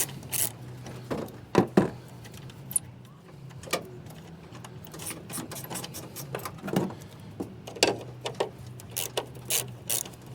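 Irregular metallic clicks and taps of hand tools loosening the 10 mm bolts that hold a Toyota Tacoma's tail light, over a low steady hum.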